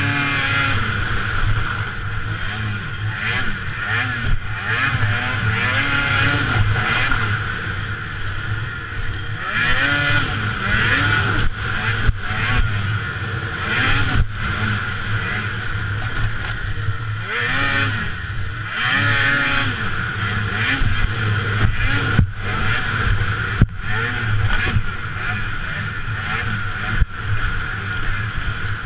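Racing snowmobile engine heard from the rider's helmet, revving up and falling back again and again as the throttle is worked through the track. A few sharp knocks come through, a couple of them near the middle and one near the end.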